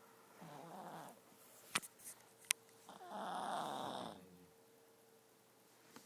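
Chihuahua-pug mix dog snoring in its sleep: a softer snore about half a second in, then a longer, louder one about three seconds in. Two short, sharp clicks fall between the snores.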